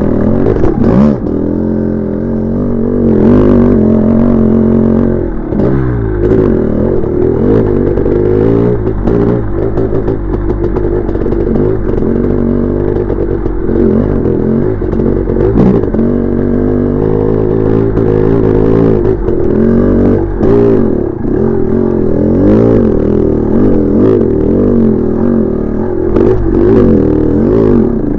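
1986 MStar (Maico) 500 two-stroke single-cylinder dirt bike engine ridden on trail, its pitch rising and falling over and over as the throttle is opened and closed. The engine is being broken in after a rebuild. Clatter and knocks from the bike over rough ground run through it.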